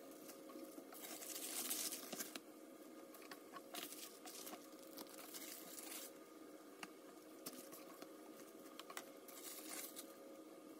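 Soft rustling and crinkling of disposable plastic gloves and grape leaves being handled as stuffed vine leaves are rolled by hand, in irregular bursts, loudest about a second in. A faint steady hum sits underneath.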